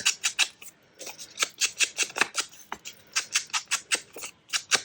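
Ink applicator rubbed in quick, scratchy strokes along the edges of a paper tag, about four strokes a second.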